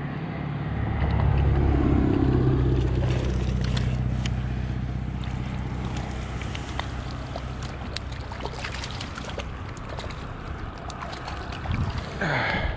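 A low, steady engine hum that swells about a second in and slowly fades away, over a constant rushing noise with scattered small clicks. There is a short louder burst near the end.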